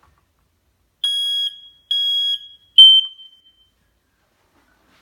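Smoke detector sounding its test alarm: three loud beeps at one high pitch, about a second apart, in the usual three-beep alarm pattern. The first two are held about half a second each; the third is shorter and loudest and rings off.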